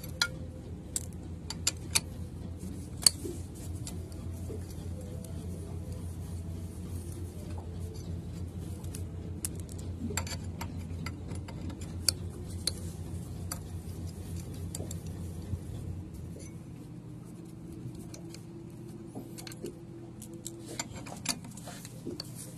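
Scattered light metallic clicks and clinks of small tools and steel parts on a Bosch in-line diesel injection pump being reassembled. A steady low machine hum runs underneath and stops about three-quarters of the way through.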